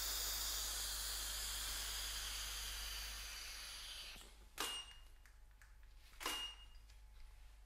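A long hissing breath of vape vapour lasting about four seconds and slowly fading. Then two short, sharp clicks about a second and a half apart.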